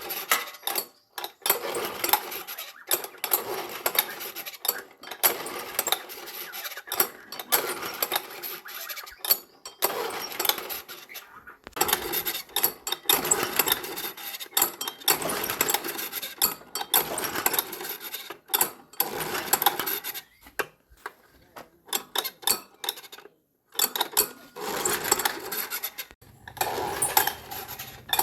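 Hand tools and small metal parts clinking, scraping and knocking against one another in irregular short bursts, typical of workshop repair work.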